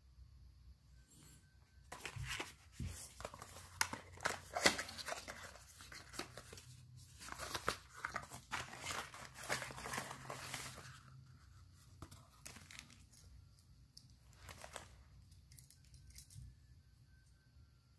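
Papery rustling, scraping and crinkling as a small cardboard box for a bicycle headset is opened and its contents pulled out, with sharp clicks mixed in, from about two seconds in until about eleven seconds. After that, only faint, occasional handling noises.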